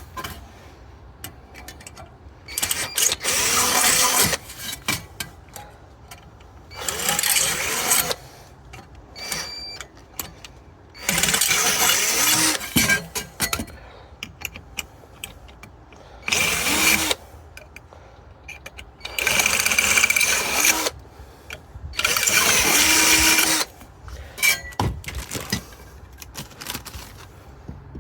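Cordless drill with a 5mm bit drilling holes through steel raised-bed panels: six bursts of drilling, each about one to two and a half seconds long, with small clicks and handling noise between them.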